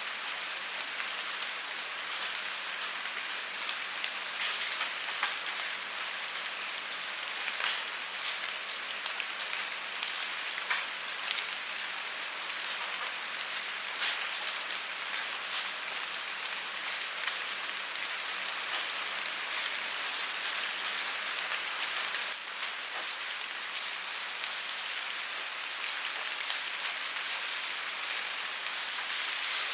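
Steady rainfall hitting a surface, with individual drop strikes standing out now and then over an even hiss.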